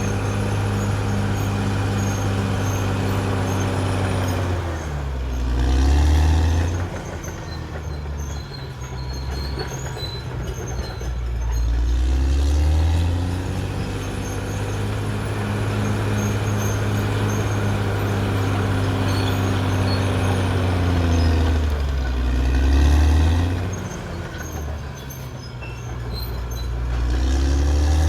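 Caterpillar D6R XL bulldozer's diesel engine running steadily, its pitch sagging and recovering several times as the sound swells, the engine taking load and easing off.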